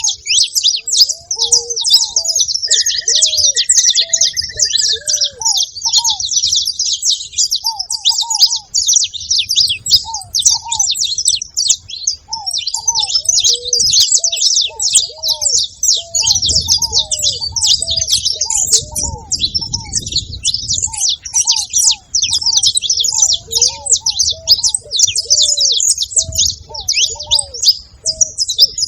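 Saffron finches chirping and singing in a dense, rapid, high chatter without a break, over ruddy ground doves cooing in short, low notes repeated in series. A single drawn-out whistle sounds about three to five seconds in.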